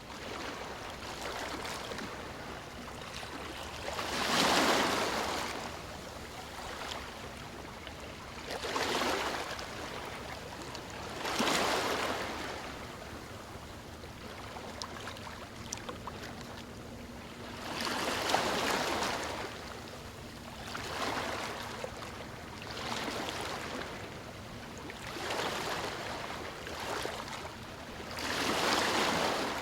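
Ocean surf: waves breaking and washing in, a swell of rushing noise every few seconds, about eight in all, over a steady wash.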